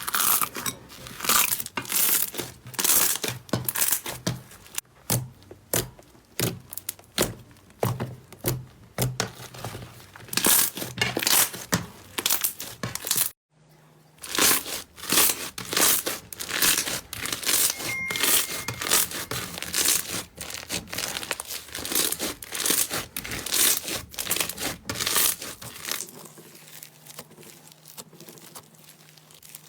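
Slime squeezed, poked and stretched by hand, giving repeated crackling, popping squishes. The sound breaks off for a moment about halfway, starts again, and grows quieter near the end.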